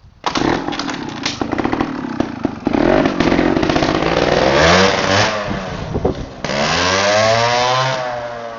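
Gas Gas TXT 125 trials motorcycle's two-stroke single-cylinder engine starting abruptly and being revved, its pitch rising and falling several times. The sound fades near the end.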